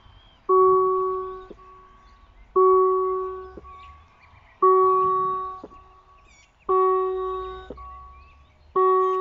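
Level-crossing warning bell striking one chiming tone about every two seconds, five times, each ring fading over about a second. It signals that the crossing has activated, with its lights switching from amber to red, for an approaching train. Birds chirp faintly in the background.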